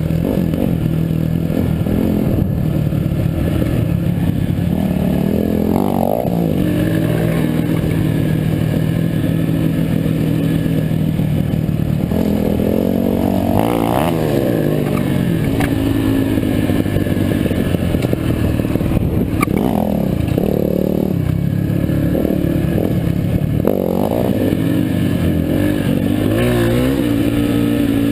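Yamaha four-stroke dirt bike engine running on a trail ride, the revs rising and falling several times as the throttle opens and closes, with the bike's chassis rattling over the rough ground.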